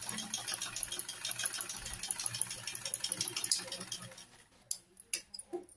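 Maxima half-shuttle sewing machine stitching at a steady pace, a rapid even clatter, running a test seam after its upper thread tension has been tightened to cure bad underside stitching. The clatter stops about four seconds in, followed by a few short sharp snips of scissors cutting the thread.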